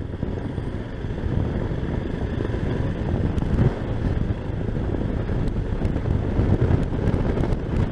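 Motorcycle riding at speed: steady engine and road rumble mixed with wind buffeting a microphone fitted with a furry windshield, with a few faint ticks in the second half.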